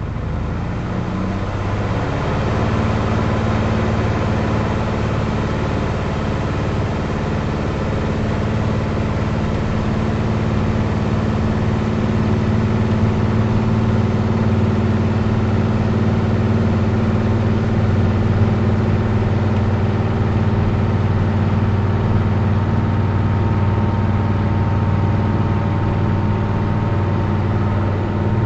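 Lycoming IO-360 four-cylinder aircraft engine, heard from the cockpit, rising quickly to full power in the first two seconds of a takeoff roll and then running steadily at about 2,200–2,300 RPM. The owner blames a fixed-pitch Catto propeller with too much pitch for holding the engine well short of its rated 2,700 RPM.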